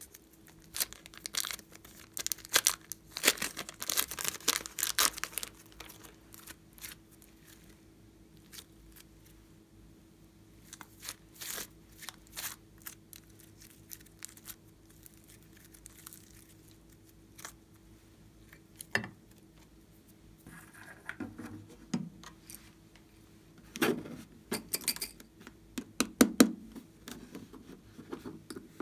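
Thin clear plastic film crinkling and tearing as it is peeled off a lump of green slime, densest in the first few seconds. It is followed by scattered crackles and clusters of handling noise as the slime and plastic are worked in the fingers.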